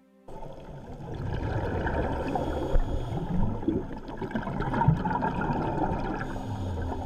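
Scuba divers' exhaled regulator bubbles, bubbling and gurgling, recorded underwater so the sound is muffled. It starts suddenly a fraction of a second in, and a low steady hum joins near the end.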